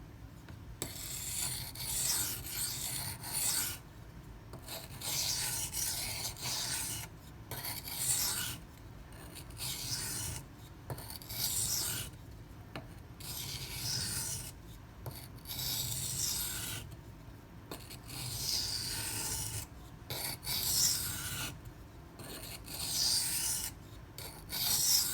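A 154CM steel knife blade being stroked across a coarse 240-grit silicon carbide sharpening stone, a rasping scrape about a second long repeated every second or two. This is the coarse grind that raises a burr and leaves the apex a little jagged.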